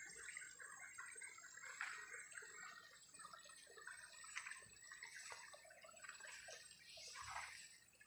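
Near silence: faint outdoor background with scattered soft ticks and rustles.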